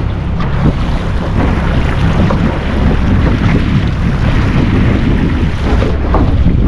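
Loud, steady wind rumble on the microphone, with sea water washing against a small boat.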